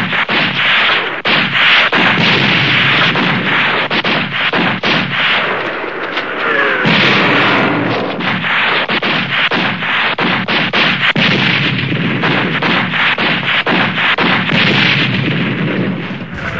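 Battle sound effect: dense, continuous gunfire mixed with artillery fire, many shots overlapping into a steady loud din.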